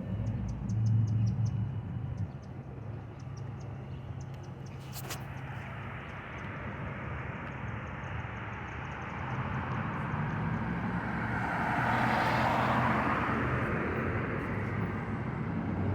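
Downtown city traffic: a low engine hum at first, then a vehicle passing, growing louder to a peak about twelve seconds in and fading, with a sharp click about five seconds in.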